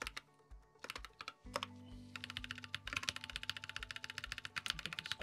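Typing on a computer keyboard: a few separate keystrokes, then a fast run of key clicks from about two seconds in until near the end. Background music with a low, regular beat plays underneath.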